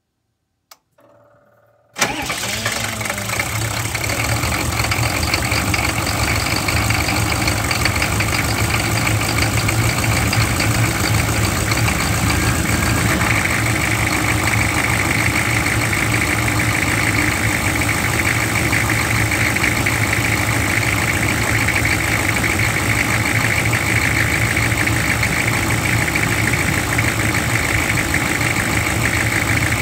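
A 6.5-litre diesel truck engine being started: a click and a brief faint whir, then the engine catches abruptly about two seconds in and settles into a steady idle.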